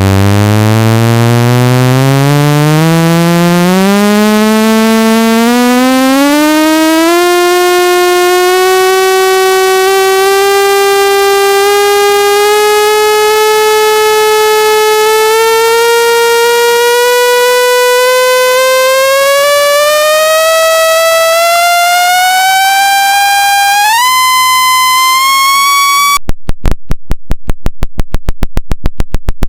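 Synthesized speaker-cleaning tone, a buzzy tone rich in overtones gliding steadily upward from a low hum to a high pitch, with a sudden step up near the end of the glide. About 26 seconds in it switches abruptly to a rapid train of loud clicking pulses, several a second. The signal is made to vibrate a phone speaker's diaphragm to drive out water and dust.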